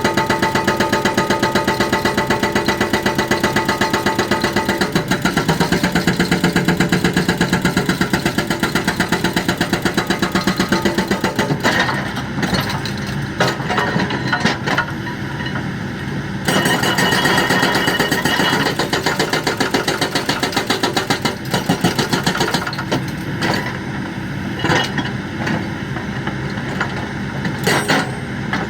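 Hydraulic breaker on a Kobelco excavator hammering in a fast, even train of blows over the running engine. About twelve seconds in, the hammering turns irregular, in shorter broken spells.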